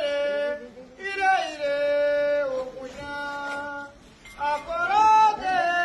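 A voice singing a candomblé chant unaccompanied, in drawn-out phrases of long held notes, pausing briefly about a second in and again about four seconds in.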